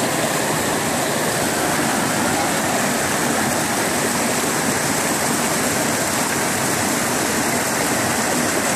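Water from a small waterfall tumbling over boulders in a series of cascades: a steady, even rush.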